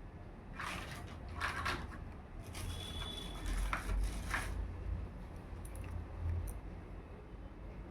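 Plastic toy packaging and small plastic pieces being handled, rustling and crinkling in three bursts, the longest in the middle, then quieter light handling.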